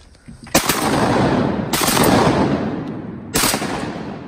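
Three shotgun shots, about a second to a second and a half apart, each followed by a long rolling echo.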